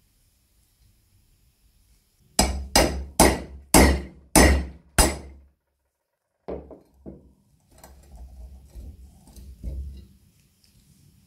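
Six sharp, ringing metal strikes about half a second apart, typical of hammer blows driving pincer jaws under a rusty nail head in iron-strapped wood. Two softer knocks follow, then a creaking scrape as the nail is levered out of the wooden carriage.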